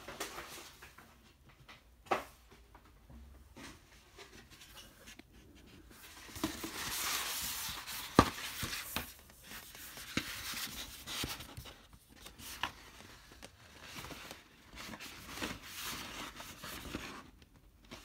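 A large paper lithograph print being unrolled and handled. The sheet rustles and crinkles, loudest in the middle, with a few sharp taps or snaps of paper, about 2 s and 8 s in.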